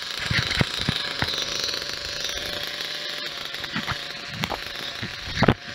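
Kyosho Mad Crusher's nitro glow-plug engine idling, warming up just after starting with the glow driver still on and its idle and mixture screws still being tuned. Several sharp knocks cut through, the loudest near the end.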